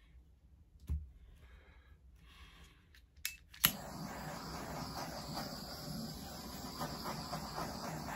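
A knock about a second in, then two quick clicks of a handheld butane torch's igniter just past three seconds, after which the torch flame lights and hisses steadily.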